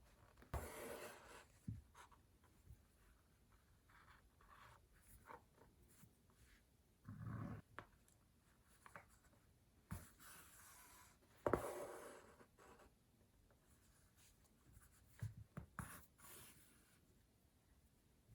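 Faint rustling and swishing of denim being handled and thread being drawn through it during hand stitching, with a few soft clicks and knocks from handling.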